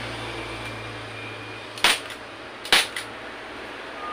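Staple gun firing twice, two sharp snaps just under a second apart, the second followed by a lighter click, as staples are driven to fix a vinyl seat cover onto a motorcycle seat's plastic base. A steady low hum runs underneath until just before the first shot.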